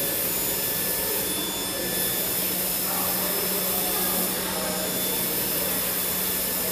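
YD2513-R flatbed UV printer running while printing ceramic tiles: a steady rushing hum with a low steady tone underneath.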